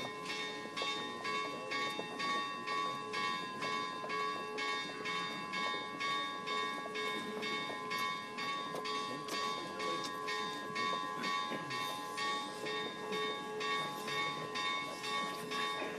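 Church bells ringing in a fast, even peal, about two strokes a second, each stroke's ring carrying on into the next.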